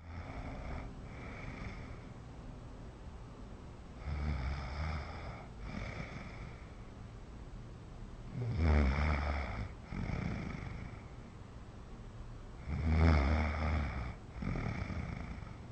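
A pregnant woman snoring loudly. Four breaths about four seconds apart, each a long snore followed by a shorter one. The first breath is the faintest.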